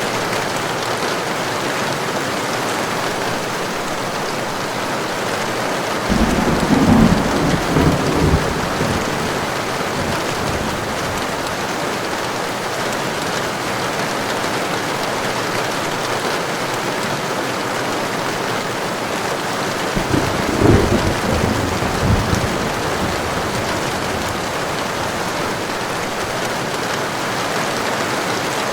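Heavy steady rain falling, with thunder rumbling twice, about six seconds in and again about twenty seconds in, each rumble lasting two to three seconds.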